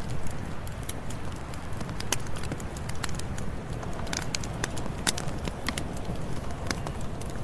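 Campfire burning: wood crackling with frequent, irregular sharp pops over a steady low rush.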